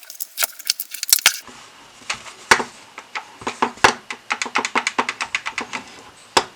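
Rapid, irregular clicking and clacking of small hard parts of an airsoft MP5 being handled and fitted together, several clicks a second with no motor running.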